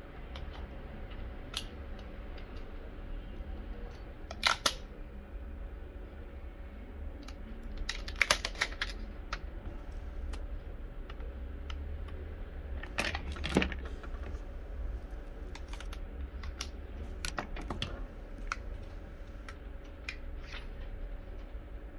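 Scattered plastic clicks and knocks from handling and working on a Dell Latitude E7450 laptop opened up with its keyboard removed, with a few louder knocks, over a steady low hum.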